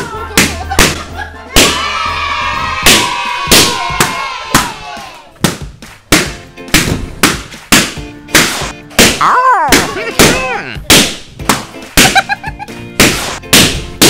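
Latex party balloons popping one after another, a loud sharp pop roughly every half second, over background music.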